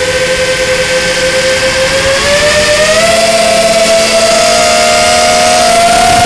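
FPV racing quadcopter's Cobra 2204 2300kv brushless motors spinning Dalprop 5040 three-blade propellers, heard from a camera mounted on the quad. It makes a loud, steady whine whose pitch rises about two to three seconds in and again near the end as the throttle goes up.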